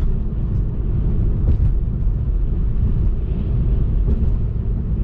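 Steady low road and wind rumble inside a Lada Vesta's cabin at highway speed, driving into a strong headwind, with a couple of faint light taps.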